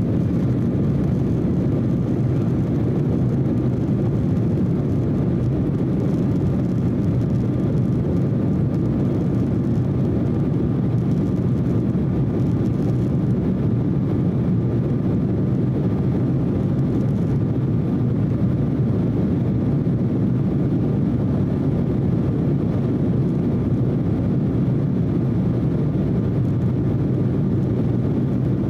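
Steady cabin noise of an Embraer E170 in its initial climb after takeoff: the CF34-8E turbofans at climb thrust and the rush of air past the fuselage, a low, even rumble with a faint steady whine above it.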